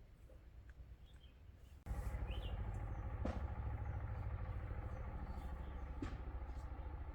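An engine running steadily with an even low rumble, cutting in abruptly about two seconds in, over faint bird chirps.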